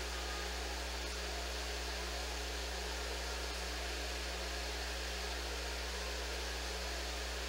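Steady background room noise: a low electrical hum under an even hiss.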